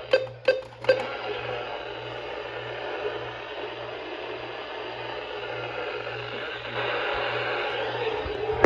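Weather radio receiver hissing with static from a weak signal, with a faint low pulsing hum underneath. Three sharp clicks in the first second.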